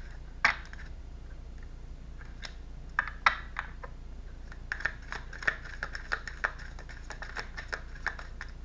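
Tarot cards being handled and shuffled: irregular runs of light clicks and taps, with a quieter gap about a second in and a denser run in the second half.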